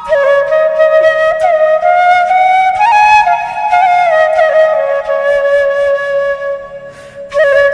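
Background music: a slow solo melody of long held notes with small ornamental turns, with a brief break near the end.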